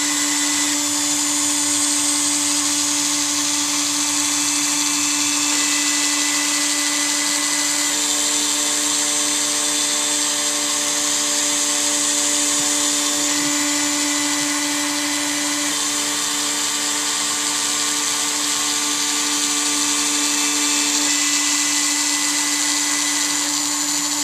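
Micro CNC router spindle running steadily, a broken 60-degree bit etching shallow passes into plexiglass, with a constant whine over a hiss of cutting. A second, higher tone comes in twice for several seconds as the machine moves along the pass.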